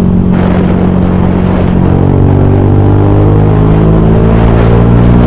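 Yamaha YZF R125's single-cylinder 125cc four-stroke engine running through its aftermarket exhaust. It holds a steady pitch at first, then rises gradually from about two seconds in as the bike accelerates in gear.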